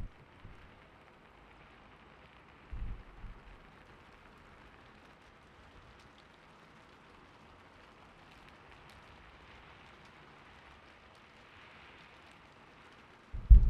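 Steady, gentle rain, a background ambience track, with a couple of soft low thumps about three seconds in and again right at the end.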